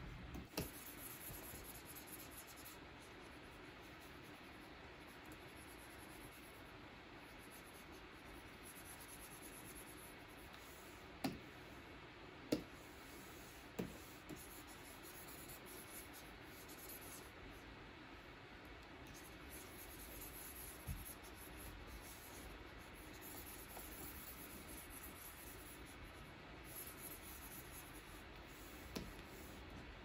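Stylus nib stroking and scratching faintly across the glass of a Wacom Cintiq Pro 24 pen display, with a few sharp taps, three of them about a second apart near the middle.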